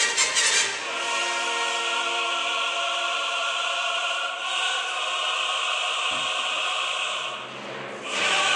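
Background music: a choir singing long held chords, after a short pulsing passage in the first second; the music dips briefly near the end.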